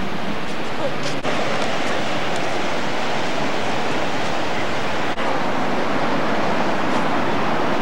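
Steady rushing of ocean surf, with two brief dropouts about a second in and about five seconds in.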